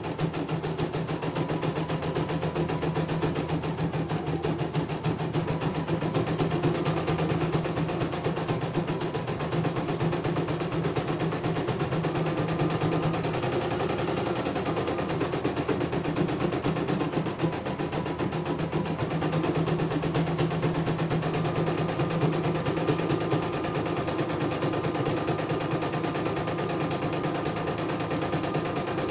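CNY E900 computerized embroidery machine stitching a design: the needle strikes in a rapid, steady clatter as the embroidery arm moves the hoop. Under it runs a low hum that drops out for a few seconds about halfway through.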